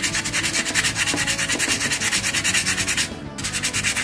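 Wet sandpaper rubbed rapidly back and forth along a steel grooming-scissor blade, scouring off rust spots. The rasping strokes pause briefly about three seconds in.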